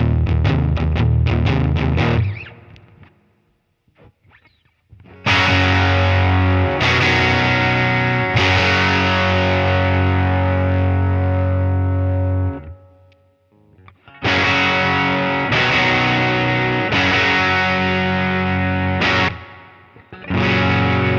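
Electric guitar played through a digital emulation of a Fender Deluxe amp's Vibrato channel, clean with a light overdrive. A quick picked phrase stops about two seconds in. After a short pause, full chords are struck and left to ring, a few strikes at a time, with brief silences between the passages.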